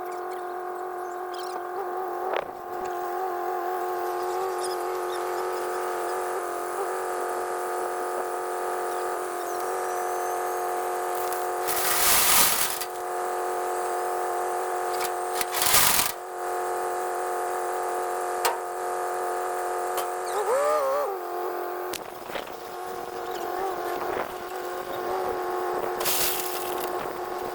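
A steady machine hum made of several held tones, its pitch wavering briefly about two-thirds of the way in. Short rushes of noise come about 12 and 16 seconds in, and again near the end.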